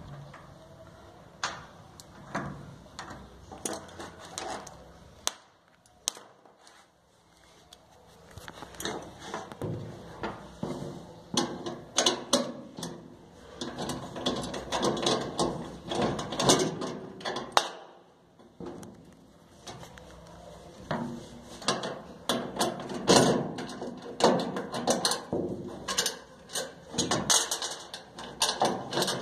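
Hands handling plastic wire connectors and metal burner parts inside a gas dryer: irregular clicks, knocks and rustling.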